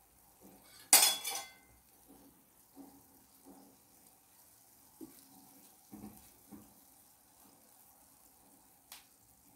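A single ringing clank of steel cookware about a second in, then soft taps and scrapes of a steel slotted spoon turning gulab jamun dough balls in a saucepan of oil. Under it is the faint sizzle of slow frying over a very low flame, and a sharp tick comes near the end.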